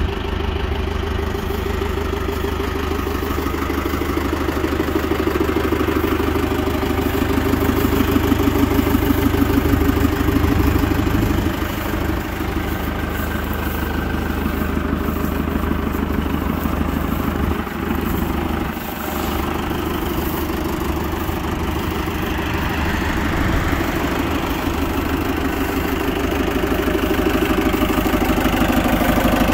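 Foton 404 utility tractor's gasoline engine idling steadily.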